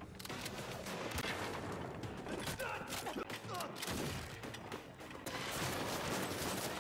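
Action-film soundtrack of a gunfight: rapid gunfire and impacts, many sharp cracks close together.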